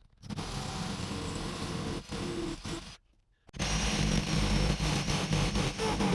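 Power drill boring through a brick paver in two runs of about two and a half seconds each, with a short pause between; the second run is louder.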